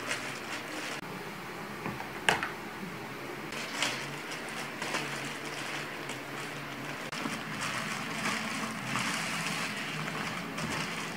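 Plastic courier mailer crinkling and rustling as it is handled and cut open with scissors, with a sharp click about two seconds in and a few lighter ones after. Bubble wrap rustles near the end.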